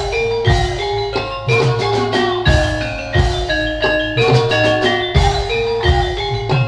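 Javanese gamelan music: bronze metallophones play a stepped melody of struck, ringing notes over low, repeated strokes of a hand drum.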